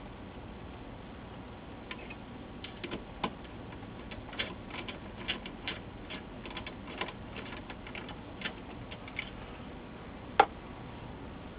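Irregular light metallic clicks and ticks of a hand screwdriver driving small screws into a monitor's sheet-metal RF shield and chassis. One sharper click comes near the end.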